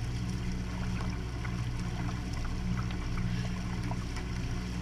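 Motorboat under way: a steady engine drone under the rush and spray of water along the hull right at the waterline.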